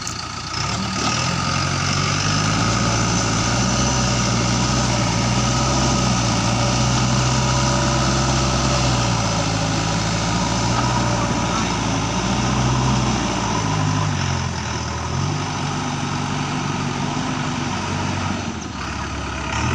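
Diesel engine of a JCB 3DX backhoe loader running under load. It revs up about a second in, then its pitch rises and falls several times as it is throttled up and eased back while the machine works.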